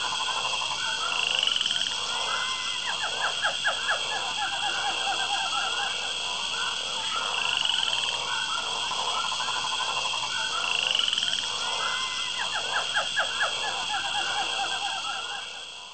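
A chorus of frogs calling: overlapping croaks and pulsed trills that swell every few seconds, with a higher rising note coming back every few seconds.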